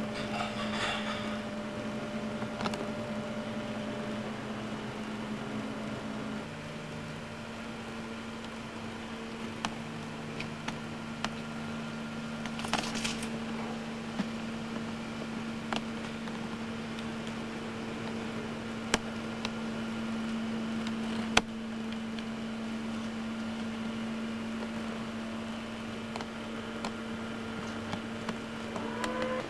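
A steady machine hum, with a lower second tone joining about a quarter of the way in and a few sharp clicks and knocks scattered through it.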